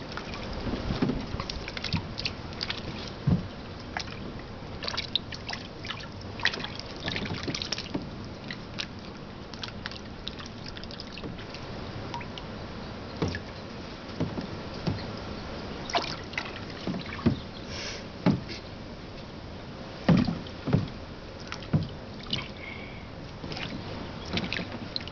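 A duck splashing and dabbling in the water of a shallow plastic paddling pool as it feeds: irregular small splashes and clicks of water, a few louder ones in the second half.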